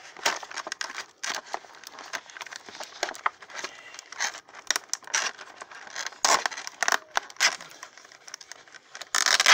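Crinkling, crackling and rustling of a toy box's packaging as it is opened by hand to free a figure, with many small irregular clicks and a louder burst of crinkling near the end.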